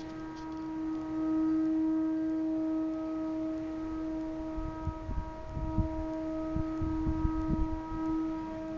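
A steady, pitched buzzing drone of unknown origin, holding one note with several higher overtones and swelling a little in loudness now and then. Low knocks on the microphone come and go between about five and seven and a half seconds in.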